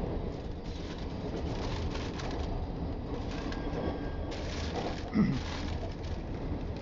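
Steady low running noise of a Ferrovie Nord commuter train moving along the track, heard from inside the carriage. A short, louder sound stands out about five seconds in.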